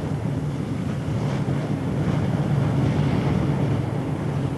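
Wind noise on the microphone and rushing water, with a low steady drone underneath.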